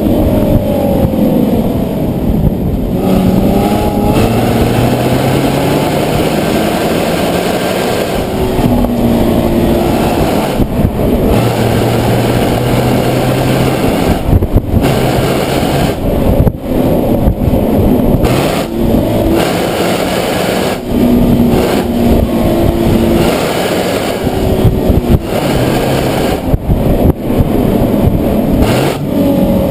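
Nissan 370Z's 3.7-litre V6 engine accelerating through the gears during a drive: the revs climb and fall repeatedly, with brief dips at each gear change.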